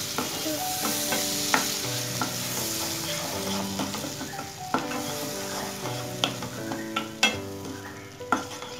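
Wooden spatula stirring curd into sizzling onion-and-spice masala in a nonstick kadai, with the hiss of frying and a few sharp knocks of the spatula against the pan. This is the curd being mixed into the fried masala for a curry.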